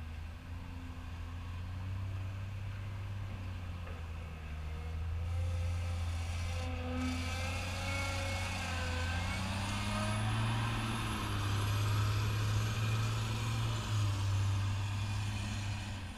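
Caterpillar 950H wheel loader's diesel engine running as the loader drives up close and past, the engine note rising and falling. A faint high whine climbs as the loader nears.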